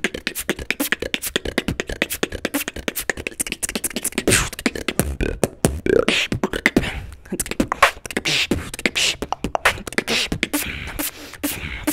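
Solo beatboxing by a man, close to the microphone: a fast, dense stream of mouth-made kick, snare and hi-hat sounds, with a few sliding pitched vocal sounds near the middle.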